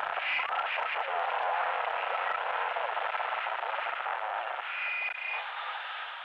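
Closing bars of an experimental electronic track: a thin, tinny wash of noise with no bass, with short whistling tones about half a second and five seconds in. It starts to fade near the end.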